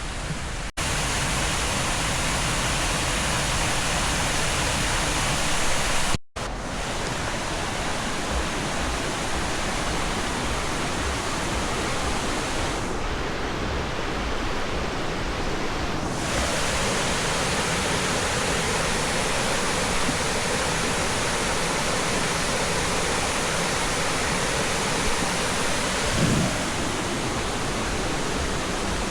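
Steady rushing of flowing water, cutting out briefly twice in the first few seconds.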